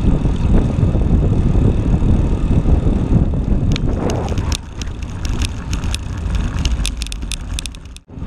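Wind and road rumble on a bicycle-mounted camera while riding along an asphalt street. About four seconds in it turns quieter and fills with quick clicking and rattling as the bike rolls over cobblestones. The sound cuts off sharply near the end.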